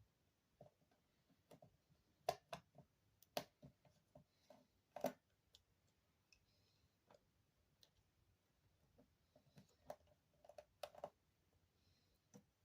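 Faint, irregular clicks and taps of small repair tools on a smartphone's internal parts as it is pried apart, with a few louder clicks and a quieter stretch in the middle.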